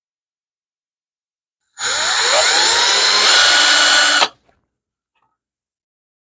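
Electric drill with a 4 mm bit drilling into a motorcycle steering stem lock to drill it out. A single run of about two and a half seconds starting about two seconds in: the motor's whine rises as it spins up, then holds steady and cuts off suddenly.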